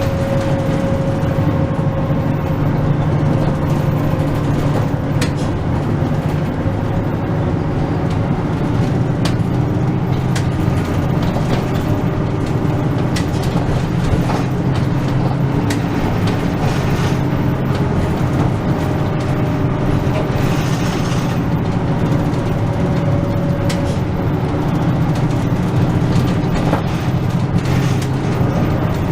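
Engine and road noise inside a route bus in motion: a steady low drone with a faint whine at times and scattered small rattles and clicks.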